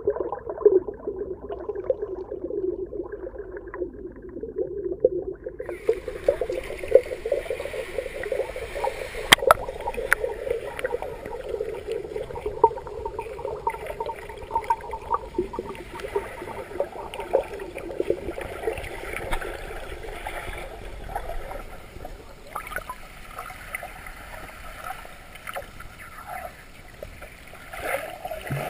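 Muffled underwater sound from a camera held below the sea surface: gurgling water and bubbles with a constant patter of small clicks and crackles. Dull for the first few seconds, then with more hiss above, and a sharp click about nine seconds in.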